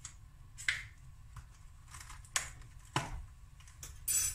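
Kitchen utensils and containers being handled: a few scattered sharp clicks and knocks, then a short, louder scraping rustle near the end.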